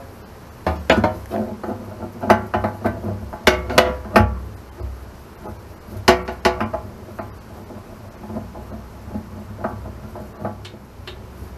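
A new hydraulic filter being threaded by hand onto its fitting inside the steel hydraulic oil reservoir of a Kubota KX91-3 excavator: irregular metal knocks and clunks against the tank, some ringing briefly. They are busiest in the first seven seconds and thin out after.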